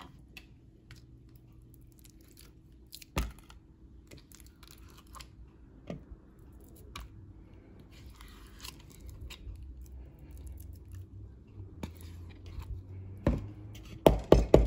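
Ricotta cheese being scooped out of a plastic tub into a plastic mixing bowl: scattered light scrapes and taps, with a cluster of louder knocks near the end.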